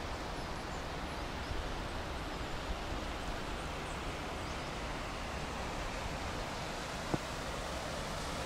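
River water rushing steadily through a narrow rock gorge, an even hiss of flowing water. A single sharp click about seven seconds in.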